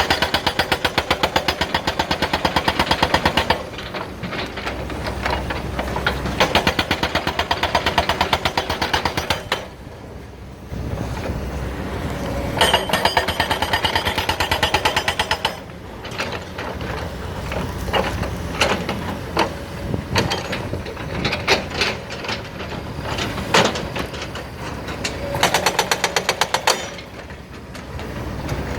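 Excavator-mounted hydraulic rock breaker hammering rock in bursts of rapid blows, each burst a few seconds long, with quieter machine running between the bursts.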